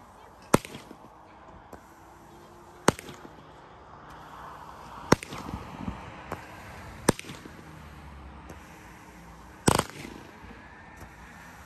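Dominator 16-shot firework cake firing: five loud shots about two to two and a half seconds apart, the shots breaking into colored flying fish, with a fainter fizzing hiss between them.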